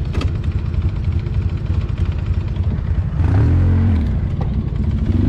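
ATV engine running steadily under load on a trail, revving up louder for about a second around three seconds in before settling back.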